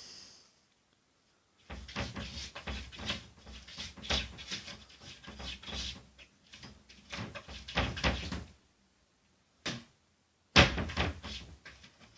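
A cupboard door rattling and knocking as a cat pulls and pushes at it, a long run of clattering for several seconds. Near the end comes one sharper, louder knock, the door banging against its frame.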